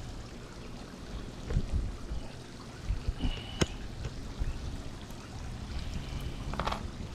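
Water running and trickling while mold is cleaned off a pool enclosure frame, with a sharp click about three and a half seconds in.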